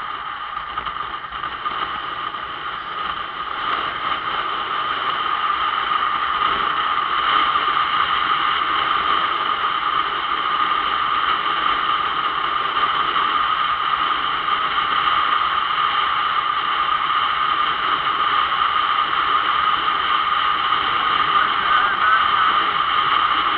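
Motorcycle on the move, heard from the rider's position: steady engine and wind noise, muffled, getting louder over the first several seconds as the bike picks up speed, then holding steady.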